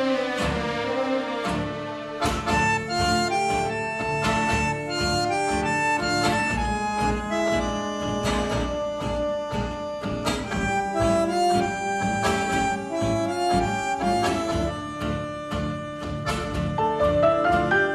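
Instrumental music: a melody over a steady beat, with a quick rising run of notes near the end.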